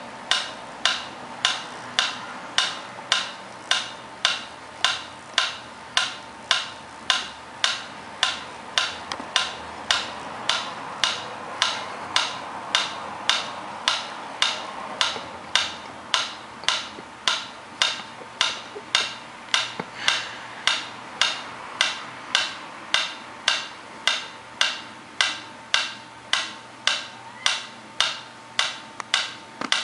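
Mechanical pendulum metronome ticking at a steady tempo, sharp evenly spaced clicks a little under two a second.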